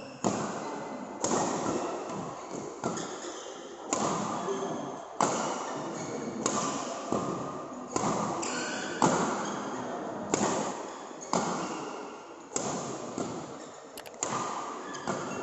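Badminton rally: rackets striking the shuttlecock about once a second, each hit a sharp smack that echoes in a large sports hall.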